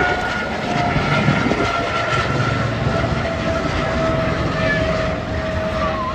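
A helicopter flying overhead: steady rotor and engine noise with a thin whine that slowly drops in pitch as it passes.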